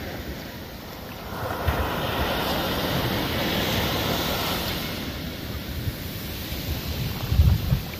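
Ocean surf: a wave breaks and washes in, swelling about a second and a half in and fading after a few seconds, with wind gusting on the microphone near the end.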